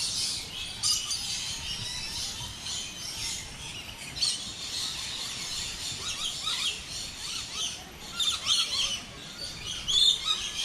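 Many small birds chirping and twittering together in a walk-through aviary, a dense chorus of short high calls with louder bursts of calls about four seconds in and again near the end.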